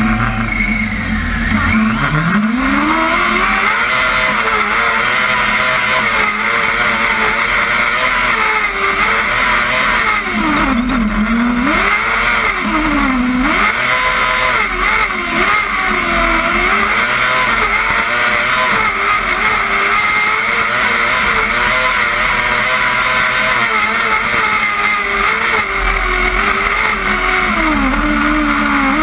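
Engine of a caged dirt-track racing car heard from inside the cockpit, running hard at high revs. Its pitch rises and falls again and again, dipping sharply several times as the driver lifts off for corners and then climbing back under acceleration.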